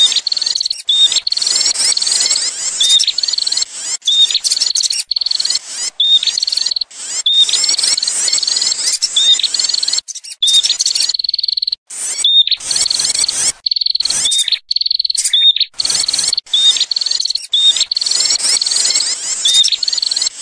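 Prinia (prenjak) lure call: dense, rapid, high-pitched chattering in runs of one to three seconds broken by short gaps. Underneath runs a steady high tone with a short chirp about once a second.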